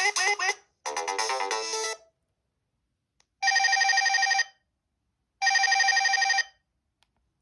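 Panasonic G60 mobile phone ringtones. A melodic polyphonic tune ends about two seconds in. Then a different ringtone starts: a steady ringing tone in one-second bursts, sounding twice about two seconds apart.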